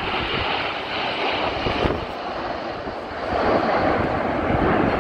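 Jet roar from the Red Arrows' formation of nine BAE Hawk T1 jets flying past. The sound is a steady, even roar that grows louder and deeper about three seconds in.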